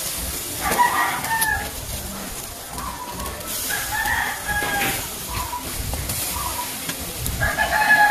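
A rooster crowing about three times, the last crow falling in pitch at its end, with short clucking calls in between.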